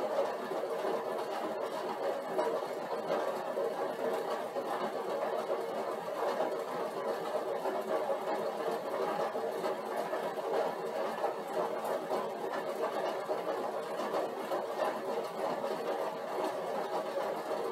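Upright stationary exercise bike whirring steadily as it is pedaled against a 150-watt load.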